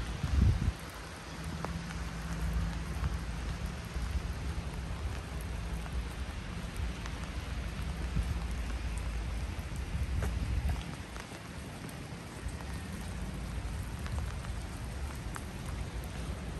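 Steady rain falling, an even hiss with scattered drop ticks. A short low thump comes about half a second in, and a low rumble underneath eases off about eleven seconds in.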